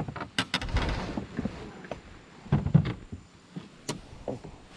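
Scattered knocks, clicks and a low thud about half a second in, from handling things aboard a small plastic fishing boat.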